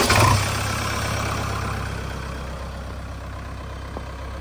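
JCB 3DX backhoe loader's diesel engine running just after start-up: loudest in the first half second, then settling into a steady idle.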